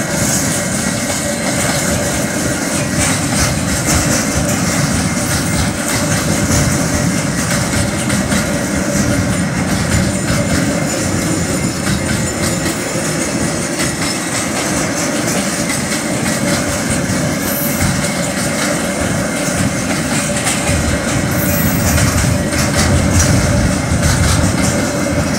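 Freight train's container wagons rolling steadily past, wheels clattering over the rails.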